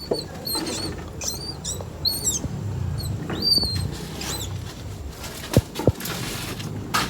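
A string of short, high-pitched squeaks or chirps from a small animal, about a dozen in the first four seconds, over a low steady rumble, followed by a few sharp knocks.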